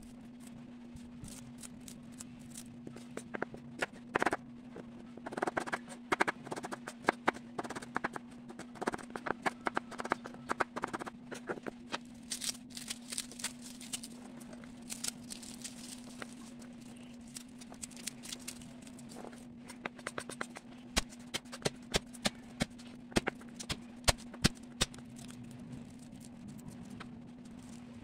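Kitchen knife chopping red onion and then garlic cloves on a wooden cutting board: irregular runs of quick knife taps on the board, with short scraping, crunching stretches. A steady low hum sits underneath.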